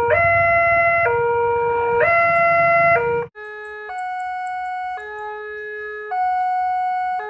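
Railway level-crossing warning alarm: an electronic two-tone signal swapping between two pitches about once a second, with road traffic rumbling underneath. A little over 3 s in it cuts to another crossing's alarm, quieter and at different pitches, sounding because a train is approaching.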